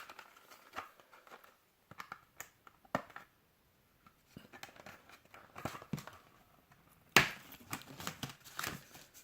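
Screen-protector packaging being handled: scattered light clicks and rustles of plastic and card, with a louder crinkling rustle starting about seven seconds in.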